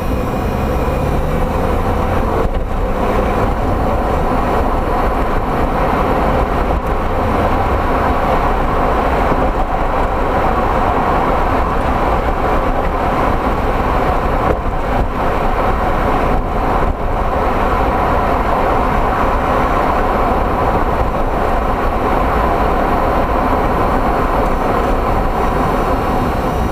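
Toyota MR2 Spyder on the move: a steady rumble of road and running gear, recorded to catch a knocking clunk from its BC Racing BR-type coilover suspension.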